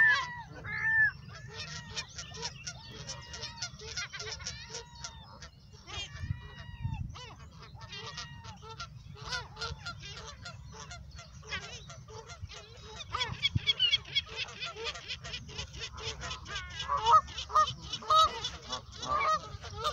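Flock of Canada geese honking: many short calls overlapping one another, loudest at the very start and again in the last few seconds.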